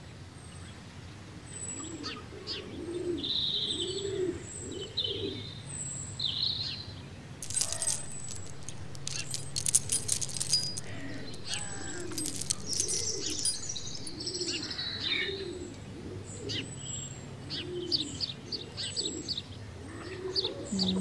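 A dove cooing in repeated phrases of low notes, with small birds chirping over it. About eight seconds in comes a short run of sharp metallic clinks from a metal chain being handled.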